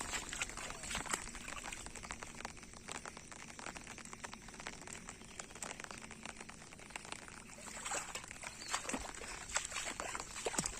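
Outdoor pond-side ambience in light rain: water trickling and sloshing, with many small irregular ticks and patters scattered throughout.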